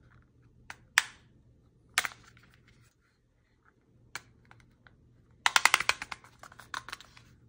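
Plastic clicks from a folding plastic phone holder being handled: a few single snaps, then a rapid run of clicks about five and a half seconds in as its hinged arm is pulled out.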